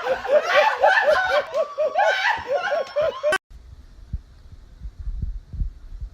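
A person laughing in quick, even pulses, which stops abruptly about three and a half seconds in. Then comes a much quieter stretch with a few low, dull thumps.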